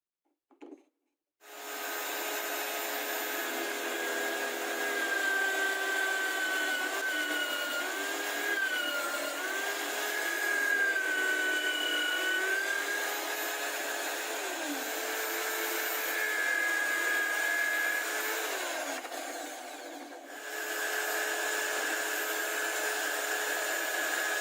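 Power tool motor running for drill-bit sharpening, its pitch sagging and recovering several times as it is loaded. It eases off briefly about twenty seconds in, then runs on steadily.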